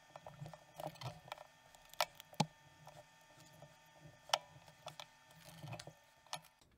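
Milwaukee cutters working a thin brass strip: scattered sharp clicks at irregular spacing as the jaws are squeezed and repositioned. The strip is not cut through by hand.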